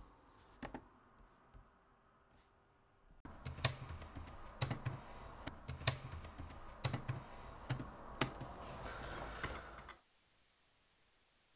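Typing on a laptop keyboard: a few scattered key clicks, then a quick, busy run of key presses that stops suddenly about ten seconds in, leaving faint room tone.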